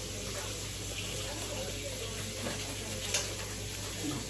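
A steady hiss of running water, with a faint click about three seconds in.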